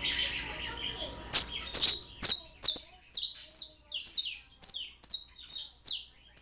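Domestic canary singing: a brief warble, then a run of loud, high, clear notes, each sweeping downward, repeated about two to three times a second.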